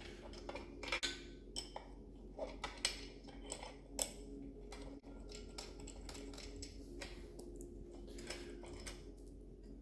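Bolts and steel brackets clinking and tapping against a stainless steel battery box as the bolts are started by hand: scattered light metallic clicks, irregular and a few a second, over a steady low hum.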